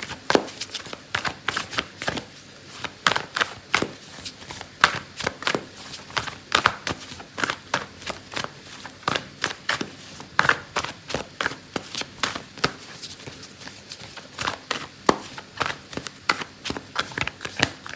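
Deck of oracle cards being shuffled by hand: a long run of quick, irregular card slaps and clicks, several a second.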